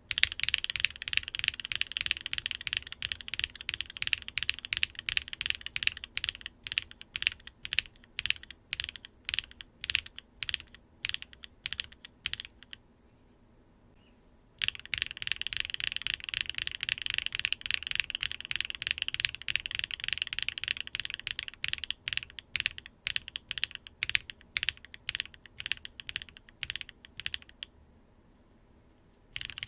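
Linear mechanical keyboard switches being typed on in quick, continuous key presses: two separate typing runs for a switch comparison, split by a pause of about two seconds partway through, with the typing stopping shortly before the end.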